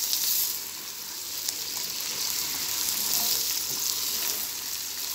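Raw chicken pieces sizzling in hot oil with browned onions in a karahi, with a steady frying hiss and faint clicks as a wooden spoon stirs them around the pan.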